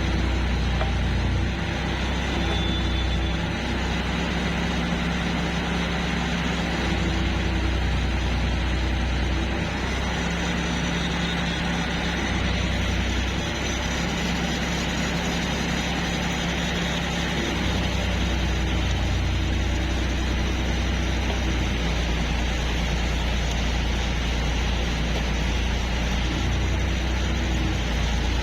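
Workshop machinery running steadily with a strong low electrical hum and an even hiss; the hum weakens and comes back several times.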